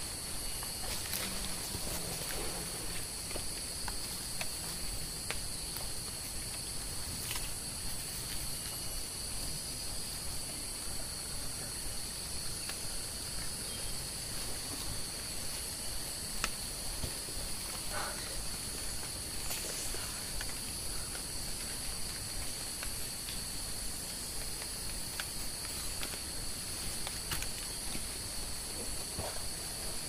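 Steady rainforest insect chorus: two continuous high-pitched drones that hold unchanged throughout, with a few faint scattered ticks and rustles.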